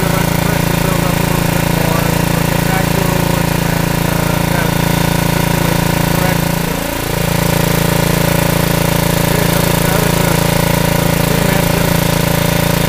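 Machinery running steadily: a small steam engine, powered from an exhaust-heated boiler, driving a belt-coupled electric motor used as a generator, with a steady engine hum. About seven seconds in the level dips briefly.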